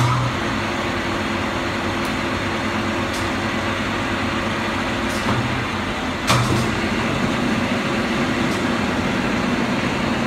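A 30-inch Bullard Cutmaster vertical turret lathe running under power, giving a steady mechanical hum from its drive and gearing. A short clunk comes right at the start and another about six seconds in.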